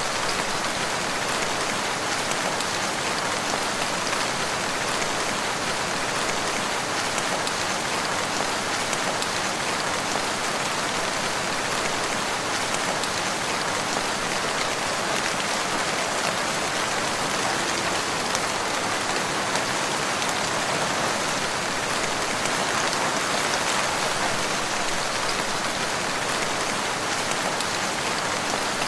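Steady rain falling on surfaces, an even patter of drops throughout.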